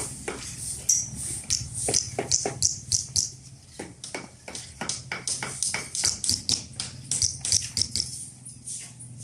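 Rapid, irregular sharp clicks and taps, a few a second, over a steady low hum.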